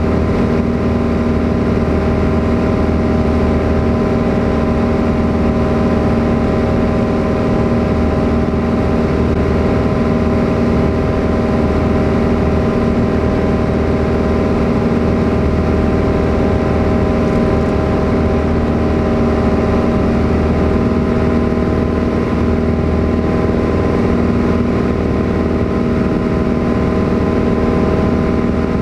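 Piper Cherokee 180's four-cylinder Lycoming engine and propeller droning at a steady pitch in flight, heard from inside the cabin.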